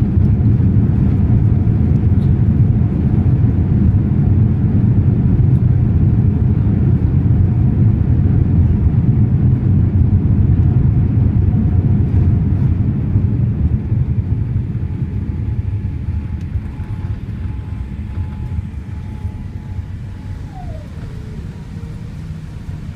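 Loud low rumble inside a Boeing 787 cabin during the landing rollout: engine and wheel noise on the runway, easing off from about halfway as the jet slows. A faint whine drops in pitch near the end.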